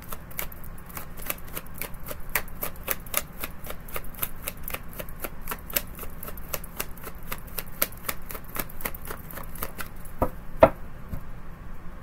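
A deck of tarot cards being shuffled by hand: a quick, even run of light card clicks, about four a second, then two louder knocks near the end.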